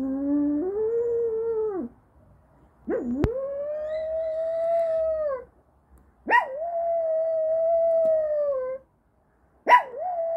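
Dog howling: four long, drawn-out howls of about two seconds each, each starting with a quick upward swoop in pitch and then holding steady before dropping off at the end.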